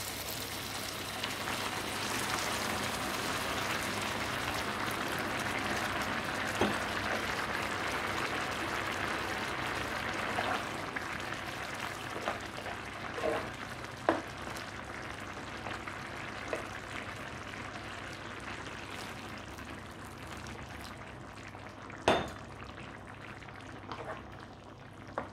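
Hot water sizzling and bubbling in a hot non-stick skillet of toasted tube pasta and mince sauce, the hiss slowly dying down as the liquid settles to a simmer. A spoon stirs the pasta and knocks against the pan now and then, the loudest knock coming near the end.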